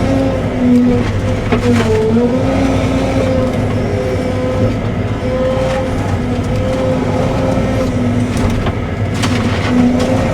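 Cat 313 excavator's diesel engine and hydraulics running steadily under load, with a whine whose pitch dips and recovers as the machine works. A few sharp knocks or cracks come through, most clearly about two seconds in and near the end.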